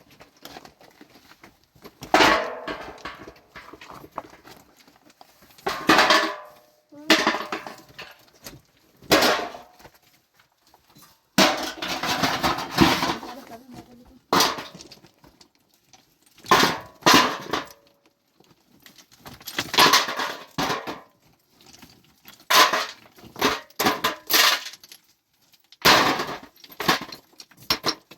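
Loose stones clattering and knocking together in irregular bursts every second or few seconds as rubble is cleared and moved by hand.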